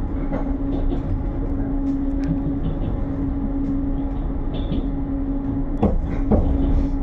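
Passenger train running, heard from inside the carriage: a steady low rumble with a constant hum, and two sharp knocks about six seconds in.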